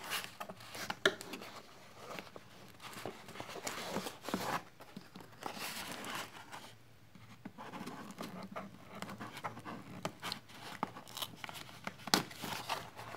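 White cardboard mailer box being handled and cut open: irregular scrapes, taps and rustling of cardboard, with scattered sharp clicks.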